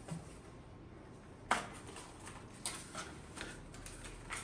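Small cardboard box being handled and opened by hand: one sharp snap about a second and a half in, then a run of lighter clicks and rustles from the cardboard flaps.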